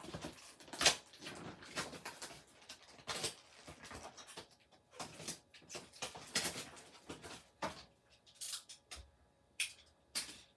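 Cardboard toy boxes and packing material being handled and unpacked: a run of irregular rustles, scrapes and light knocks.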